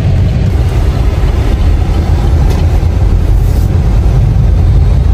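Steady low rumble of road and engine noise inside a moving car's cabin as it drives slowly.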